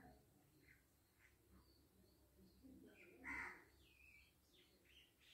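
Near silence with faint room tone, and a crow cawing faintly in the background about three seconds in.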